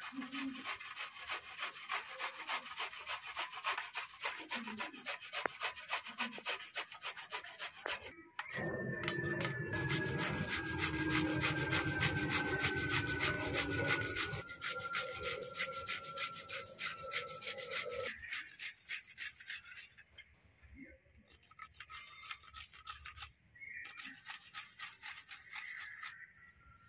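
Peeled giant taro (maan kochu) root scraped stroke after stroke across a stainless-steel grater over a steel bowl, a rhythmic rasping of about three strokes a second. For roughly ten seconds in the middle, a louder steady hum with a thin whine that slowly falls in pitch runs under the strokes.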